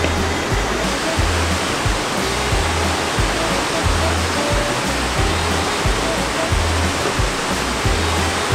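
Rushing mountain-valley stream, a steady loud water noise, under background music with a deep bass beat pulsing about once a second.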